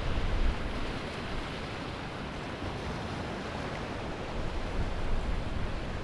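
Ocean surf washing onto a sandy beach. A wave surges at the very start, a steadier wash of water follows, and the next wave swells near the end.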